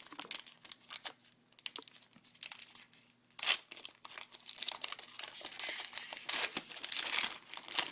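Plastic wrapper of a trading-card pack crinkling and tearing as it is handled and opened, with a loud rip about three and a half seconds in and a longer stretch of crackling later on.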